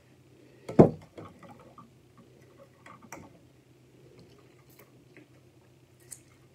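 A sharp knock about a second in, then scattered faint clicks and taps as a lidded plastic tumbler with a straw is handled, shaken and sipped from, over a low steady hum.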